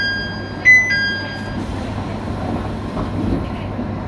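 Train's electronic two-note chime, a higher note falling to a lower one, sounding twice, over the steady low hum and rumble of the train.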